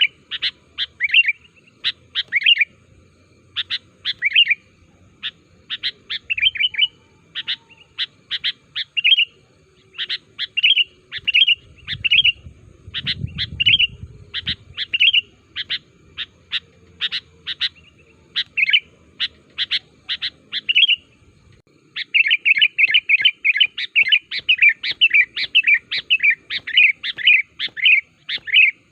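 Sooty-headed bulbul (kutilang) calling energetically in a stream of short, bright chirping notes, spaced out at first. About three-quarters of the way through it breaks into a fast, dense chattering run.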